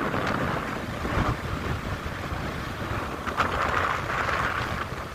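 Wind buffeting the microphone over the low rumble of a moving vehicle, as when riding along a road.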